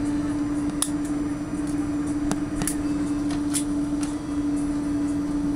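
Cabin noise of an Airbus A330-200 taxiing after landing: a steady hum with one constant low drone tone over a rumble, broken by a few short sharp clicks.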